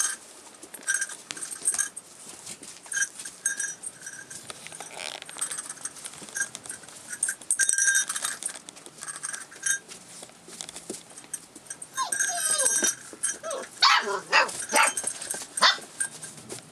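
Rough collie puppies play-fighting, their paws scuffling on the pen's pads, with a falling whine about twelve seconds in and a quick run of high yips and barks near the end.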